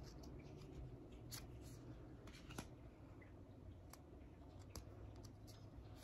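Faint handling of satin-finish oracle cards: a card slid off the front of the deck, with a few soft scrapes and light clicks scattered over low room tone.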